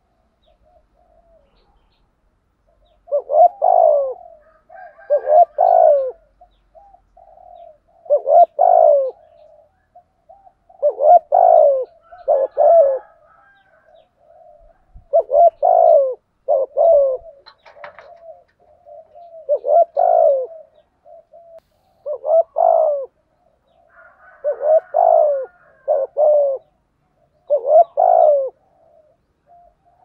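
Spotted dove cooing. After a quiet first three seconds it gives pairs of loud coos every two to three seconds, with soft rolling coos between them. This is the excited 'thúc gù' urging coo that spotted dove keepers use to provoke rival males.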